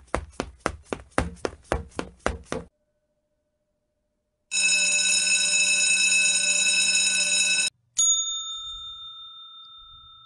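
A quick run of pops, about five a second, stops after a couple of seconds. After a pause comes a steady ringing tone for about three seconds. Then a service bell (desk bell) is struck once near the end and rings out, slowly fading.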